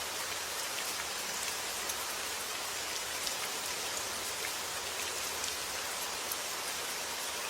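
Steady summer rain falling, an even hiss with scattered individual drop ticks.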